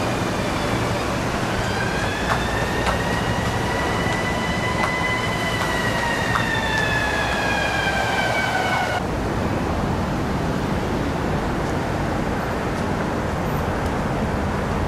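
A siren wails over steady street traffic noise, its pitch rising and falling slowly, then cuts off abruptly about nine seconds in, leaving only the traffic noise.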